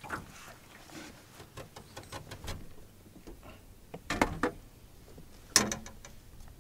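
Light scattered clicks and knocks from a landed fish and fishing tackle being handled in a boat, with two sharper knocks about four and five and a half seconds in.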